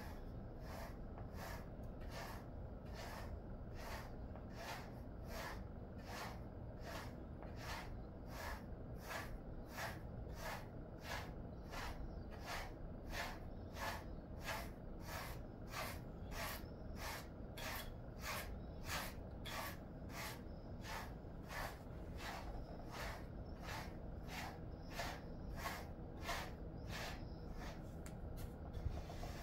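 Pet brush stroking through a Jindo-mix dog's fur, an even rhythm of brushing strokes at about two a second.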